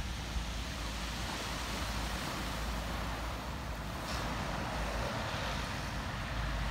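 Waves washing onto the beach, with wind buffeting the microphone, over a steady low engine rumble.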